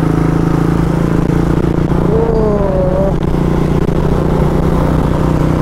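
Motorcycle engine running steadily while riding, with road and wind rumble. A short gliding tone rises and falls about two seconds in.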